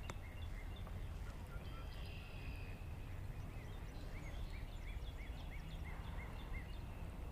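A bird calling over and over in short, arched notes, about two a second, stopping a little over six seconds in, over a faint low steady rumble.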